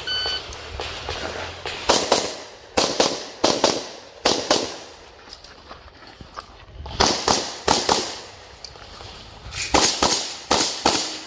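A shot timer's short start beep, then handgun shots fired mostly in quick pairs, in several groups with gaps between them, as a competitor shoots an IPSC stage.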